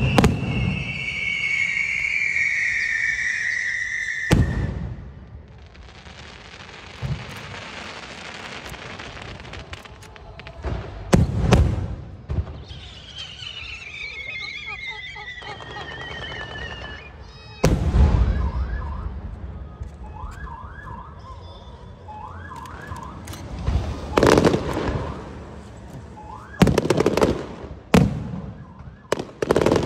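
Aerial fireworks: shells bursting with sharp bangs every few seconds, long whistles gliding down in pitch, short rising whistles, and crackling between the bursts.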